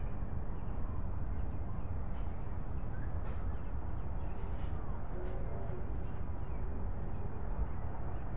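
Backyard outdoor ambience: a steady low rumble, with faint high chirps now and then.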